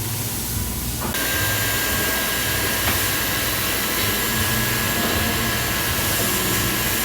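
A steady hiss with a low hum underneath. About a second in it gets louder and brighter, and a thin steady whine joins it.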